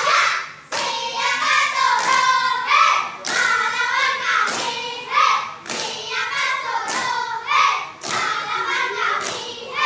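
A group of young children singing and chanting a scout cheer (yel-yel) in unison. A sharp thump falls about once a second, keeping the beat.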